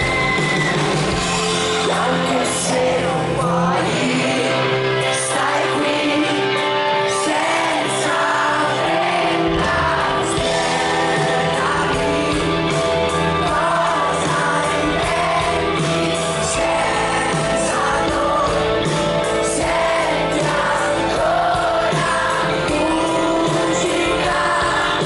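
Live pop-rock band playing with a male lead vocal over electric bass, guitar and drums, heard from within the audience. The deep bass drops away a couple of seconds in and comes back in full about ten seconds in.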